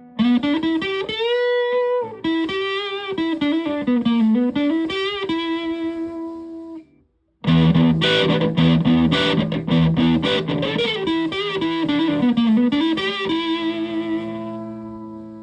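Electric guitar with humbucker pickups played through a heavily modified Buzzaround fuzz pedal, a distorted single-note lead phrase with bends and vibrato. The phrase stops for a moment about seven seconds in, then is played again with a thicker, fuzzier tone and ends on a long held note.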